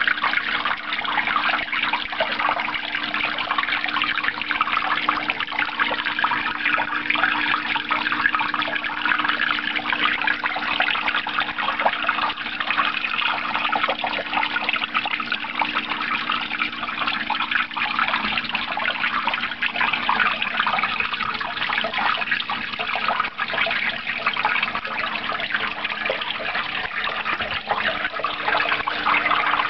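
Water from a terrarium's artificial waterfalls splashing and trickling steadily over fake rock, with a steady low hum underneath.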